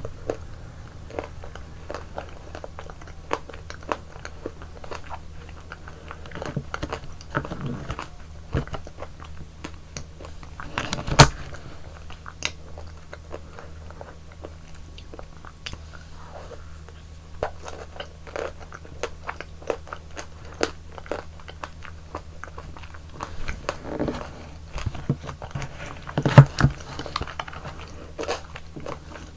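Close-miked eating of yogurt ice cream: a run of small sticky bites, smacks and chews, with two much louder crunching bites, one about a third of the way in and one near the end.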